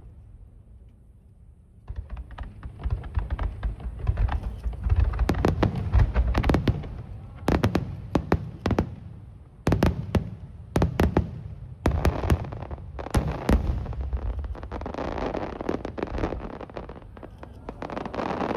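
A fireworks display bursting overhead. After about two seconds of quiet, many sharp bangs go off in quick succession, several nearly together, and near the end they give way to a steadier, denser noise.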